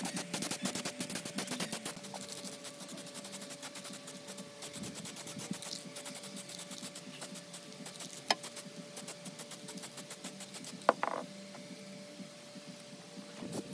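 An aerosol spray paint can being shaken, its mixing ball rattling in quick, even clicks that stop about nine seconds in. A single sharp knock follows near the end.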